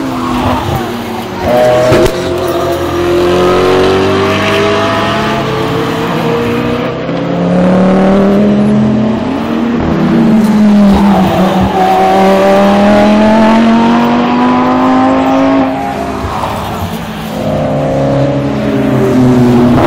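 Race cars passing one after another at speed, their engines revving up with rising pitch and dropping at each gear change. The engine noise is loud and continuous, briefly quieter between cars.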